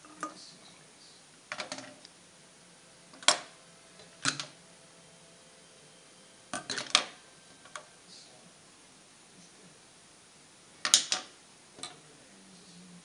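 Aluminium drink cans and hand tools handled on a tabletop: about seven scattered light knocks and clicks, the loudest about three seconds in and again near the end.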